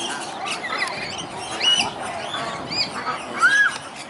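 A crowd of birds calling over one another: many short, arched chirps and squawks overlapping, with one louder call about three and a half seconds in.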